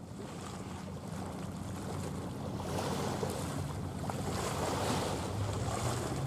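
Wind buffeting the microphone over small waves washing on the shore, growing gradually louder.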